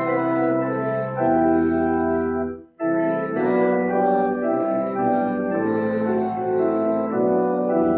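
Church organ playing sustained chords in slow phrases, with a brief break between phrases about three seconds in.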